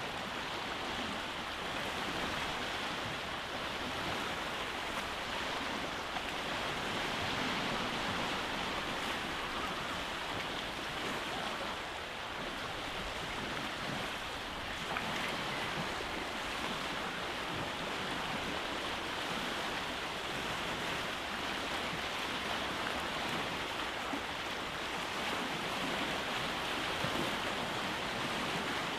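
Waves breaking and washing over a rocky beach, a continuous rush of surf that swells gently in level.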